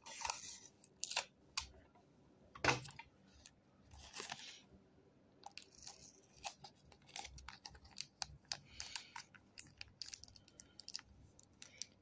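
Clear adhesive tape being pulled off a dispenser and torn, then pressed onto a clear plastic lighter sleeve: short rasps of tape near the start and about four seconds in, a soft knock just before three seconds, and many small clicks and crinkles of the plastic being handled.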